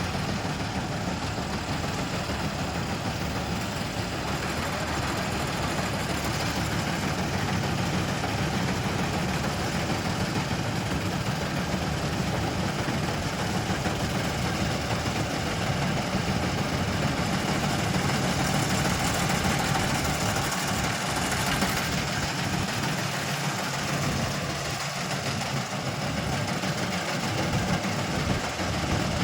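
John Deere combine harvester running steadily: a continuous, even engine and machinery noise with a strong low rumble.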